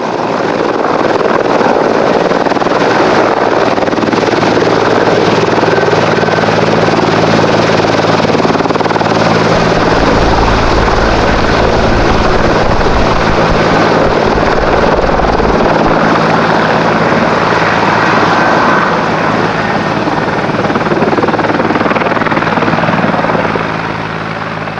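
Mil Mi-24V/35 Hind helicopter hovering and manoeuvring low, the loud, steady beat of its main rotor over the whine of its twin turboshaft engines. A deeper rumble comes in for several seconds in the middle, and the sound drops somewhat near the end.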